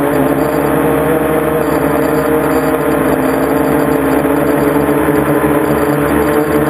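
Quadcopter's electric motors and propellers whirring steadily, heard from the camera mounted on its frame: several pitched tones that waver slightly over a constant rushing hiss.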